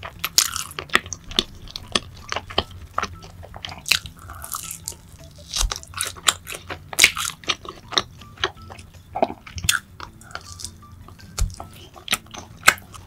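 Close-miked eating: a person biting and chewing crunchy fried food, with many sharp, irregular crunches throughout.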